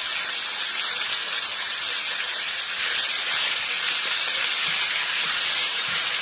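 Chopped pork frying in hot oil in a pan: a steady, loud sizzle.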